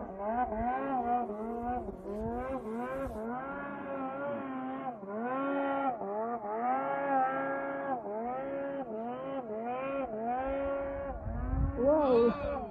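Distant snowmobile engine revving up and easing off again and again, a buzzing pitch that rises and dips about once a second as the throttle is worked on a steep climb; it gets louder near the end.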